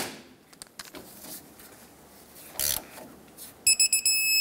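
Electronic torque wrench beeping on the tie rod castle nut: a quick run of beeps that turns into a steady tone lasting about a second, the signal that the set torque of 67 foot-pounds has been reached. A brief scrape of the tool comes shortly before.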